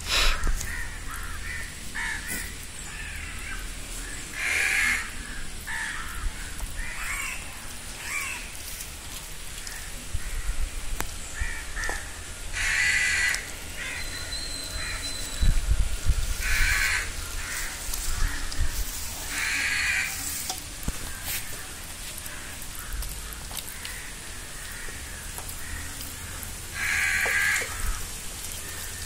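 Crows cawing: single harsh caws every few seconds, about five in all.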